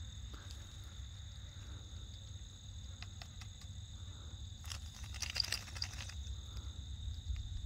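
Crickets trilling steadily in the background, with a short patch of clicks and rustling about five seconds in.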